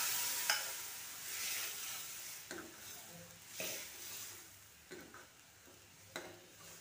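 Blended dal and spinach hitting hot oil tempering in a kadhai, sizzling and dying away, while a steel ladle stirs and scrapes against the pan with a few clinks, the sharpest about half a second in.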